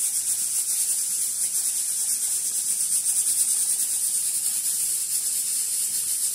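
Stovetop pressure cooker hissing steadily and high as steam escapes from its weight valve.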